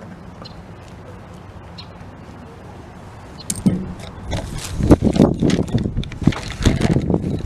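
Carburetor parts and hand tools handled on a workbench: low hum, then about three and a half seconds in, loud, irregular knocks and clatter of metal pieces being picked up and set down.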